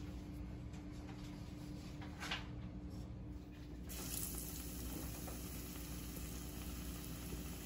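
Battered catfish frying in hot oil in a cast iron skillet: a steady sizzling hiss that starts suddenly about halfway through as a piece goes into the oil. A steady low hum sits underneath throughout.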